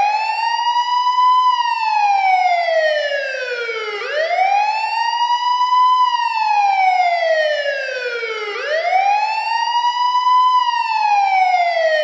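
Police siren wailing, a slow rise in pitch followed by a longer fall, repeated about three times.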